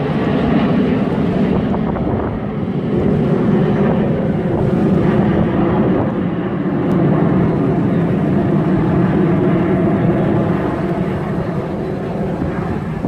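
Fixed-wing aircraft flying over at an air show: a loud, steady, low engine noise that swells and eases a few times.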